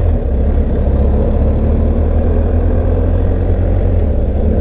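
BMW GS Adventure's boxer-twin engine running steadily at low road speed, heard from the rider's seat over a constant rush of wind and road noise.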